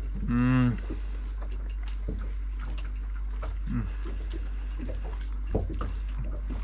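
A man eating steamed mud crab: a short hummed "mmm" about half a second in, then scattered small clicks and mouth sounds of chewing, over a steady low hum.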